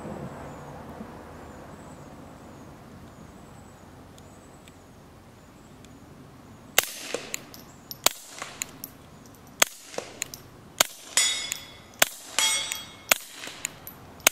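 Suppressed .22 LR GSG 1911 pistol firing a string of about nine shots, starting about halfway in and coming faster toward the end. Each shot is a subdued crack, mostly the action cycling, and the hits on the metal plate target ring out with a clang.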